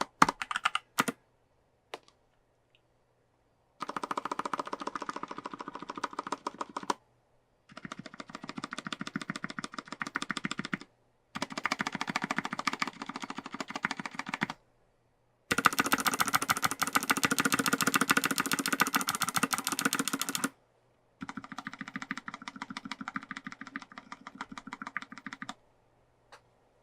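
Fast typing on a mechanical keyboard with Kailh Pro Heavy Berry linear switches in an aluminium plate and plastic case, with PBT keycaps. It comes in five runs of rapid keystrokes a few seconds each, with short silent pauses between them; the middle run is the loudest.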